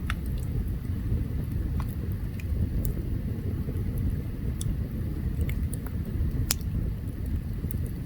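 Open campfire burning: scattered sharp crackles and pops, the loudest about six and a half seconds in, over a steady low rumble.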